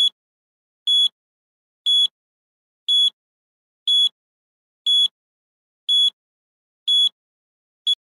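Countdown timer sound effect: a short, high beep once a second, nine beeps in all, with silence between them.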